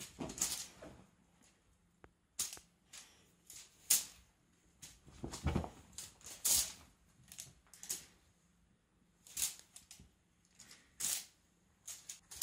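A cat clambering and pouncing on a cloth-covered sofa: irregular short scratches and rustles of paws and claws on the fabric, with a dull thump about five and a half seconds in.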